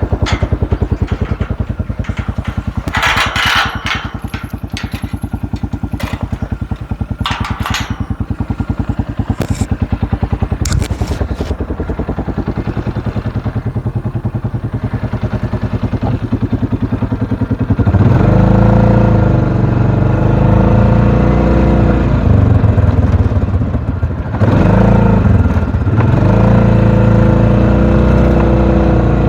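Small vehicle engine running with a steady pulse, with bouts of rattling clatter in the first several seconds. About eighteen seconds in, the engine gets louder and fuller and stays that way.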